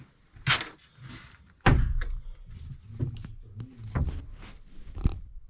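A series of knocks and thuds, the loudest a heavy thump about two seconds in, followed by lighter knocks and a rattle.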